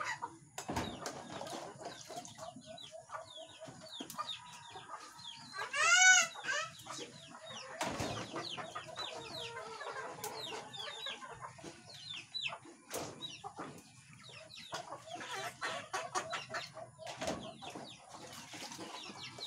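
Chickens clucking and chirping, with many short calls and one loud, drawn-out call from a chicken about six seconds in. Plastic dishes knock now and then as they are washed in a basin.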